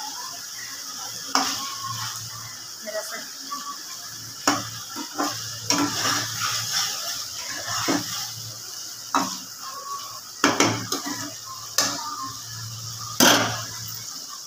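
Metal ladle stirring and scraping a kofta curry in a steel kadhai, knocking against the pan about ten times, over the steady sizzle of the gravy cooking on the stove.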